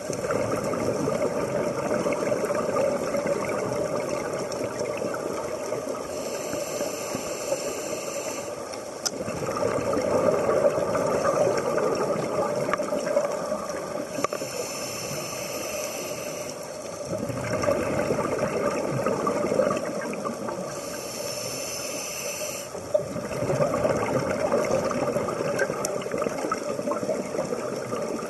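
A scuba diver breathing through a regulator underwater: a hissing inhale, then a louder rush of exhaled bubbles, repeating about every seven seconds.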